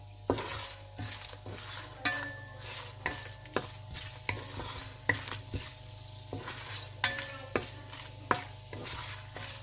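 Whole spices sizzling in hot ghee in a pot, stirred with a wooden spoon that knocks and scrapes against the pot about twice a second.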